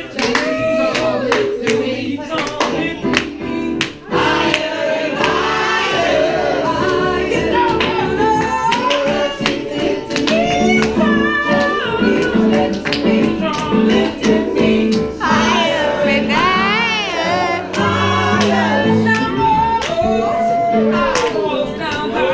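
Live music: a voice singing over instrumental accompaniment with a steady beat.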